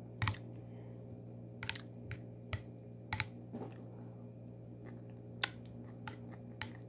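Close-up eating sounds: a metal spoon and the mouth giving scattered sharp clicks and smacks while chewing spoonfuls of rice mixed with yogurt and cucumber. A steady low hum runs underneath.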